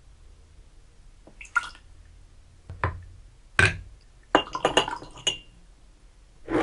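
A small cup scooping liqueur from a glass jar and pouring it into a small glass: a few separate light clinks and knocks of the cup against the glass, then a quick run of ringing glass clinks with dripping and pouring liquid near the end.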